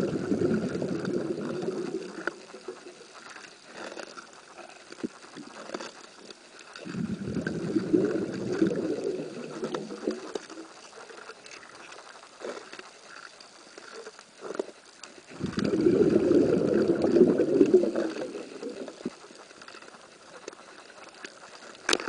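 Scuba diver's exhaled bubbles rumbling out of the regulator in three bursts of two to three seconds, about eight seconds apart, as in slow, regular breathing. Faint scattered clicks and crackles fill the gaps between breaths.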